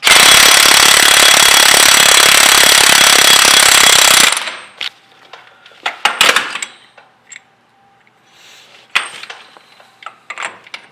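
Impact wrench hammering rapidly for about four seconds as it spins the 32 mm axle nut off the front hub, then stopping suddenly. Metal clicks and clinks follow as the nut and socket are handled.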